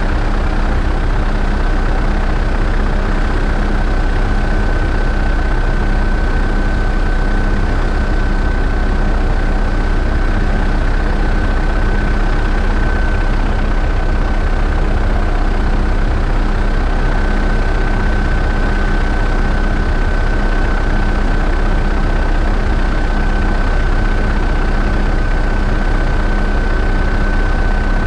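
Helicopter in steady flight: constant engine and rotor noise with a steady high-pitched whine running through it.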